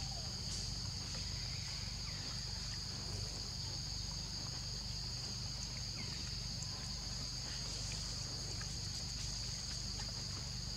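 Steady high-pitched insect drone, two close unbroken tones holding level, over a low steady rumble.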